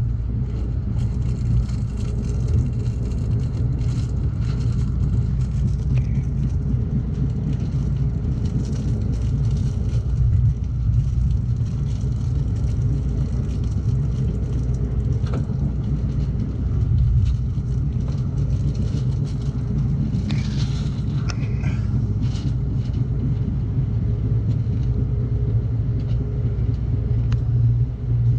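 Amtrak Cascades passenger train running along the track: a steady low rumble with faint scattered clicks, and a brief higher-pitched sound about twenty seconds in.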